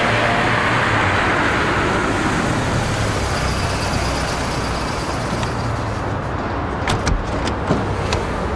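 A Vauxhall Vectra saloon drives past close by. Its tyre and engine noise is loudest in the first couple of seconds, then fades over a low steady rumble. A few sharp knocks come near the end.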